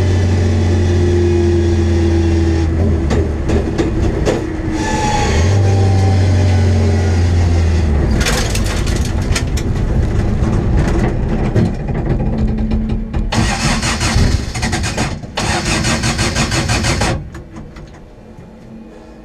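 MG Midget's four-cylinder race engine heard from inside the stripped cabin, running with a steady note under load, with a short break about five seconds in. From about eight seconds in it stutters and spits irregularly, then cuts out near the end: the misfire of a failing ignition coil.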